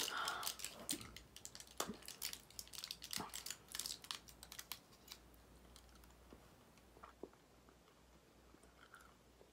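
Crinkling and crackling of a chewing-gum packet being handled and opened, busy for the first four seconds or so, then only a few scattered clicks.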